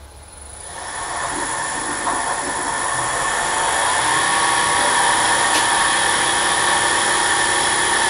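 Old drill-press mill spindle, running on its original SKF roller bearings, spun up to high speed by its variable-frequency drive: a whir that builds and rises in pitch, then settles into a steady run about four seconds in, with a high steady whine over it. It sounds as it should, with no sign of trouble from the bearings.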